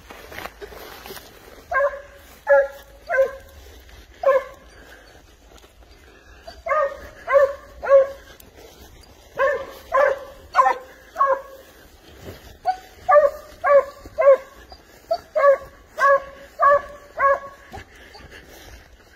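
Spanish hound (sabueso español) giving tongue on a wild boar's scent trail: short barks in quick runs of three to six, with pauses of a second or two between runs.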